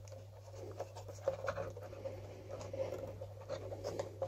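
Faint rustling, scratching and small clicks of fingers pressing soft foam sponges and wires into place around an autopilot unit in a foam model-plane fuselage.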